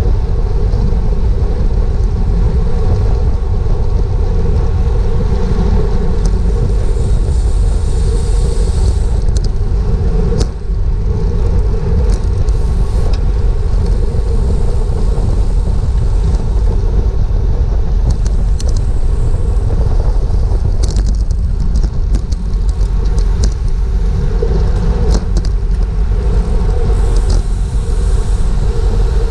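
Wind rushing over the microphone of a GoPro on a racing bicycle riding at speed in a criterium pack: a loud steady rumble, with scattered sharp clicks throughout.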